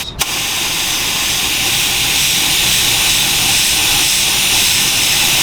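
Air spray gun hissing steadily as it sprays light coats of vinyl dye onto a car door panel, cutting off sharply when the trigger is released.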